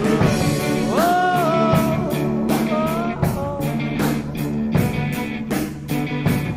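Rock music with a steady drum beat and held notes; a lead line slides up in pitch about a second in and again near three seconds.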